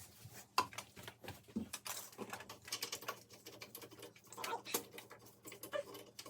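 Irregular light clicks, taps and rustling of hands handling wires and small parts.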